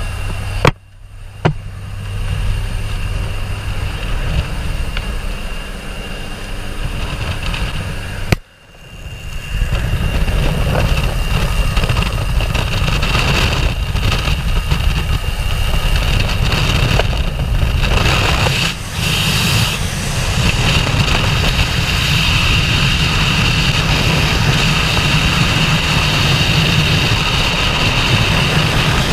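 Jump plane's engine drone with air rushing in at the open door, a steady low hum under a hiss. After a short dropout about eight seconds in, loud steady wind rush on the camera microphone takes over through the exit and into freefall.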